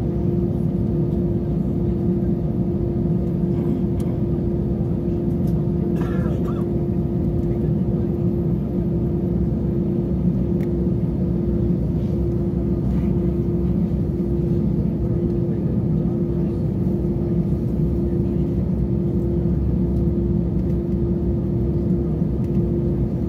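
Jet airliner cabin noise while taxiing: an even low rumble of the engines at idle with a steady hum over it. A brief higher sound comes about six seconds in.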